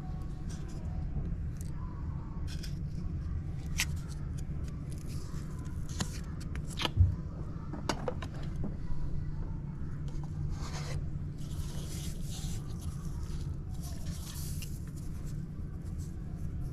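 Handling noise of small ornaments and figurines being picked up, turned over and set down on a shelf: light scrapes, rustles and clicks over a steady low hum, with one dull knock about seven seconds in.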